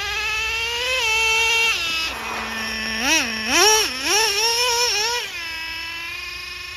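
Nitro RC car's small two-stroke glow engine running at high revs, its pitch rising and falling as the throttle is worked, dropping briefly to a lower steady note, then revving up again before settling.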